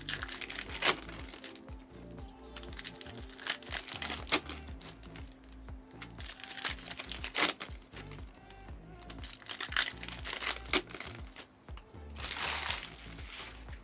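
Foil trading-card pack wrappers crinkling and tearing, with repeated sharp clicks of cards being handled and a longer crinkle near the end, over steady background music.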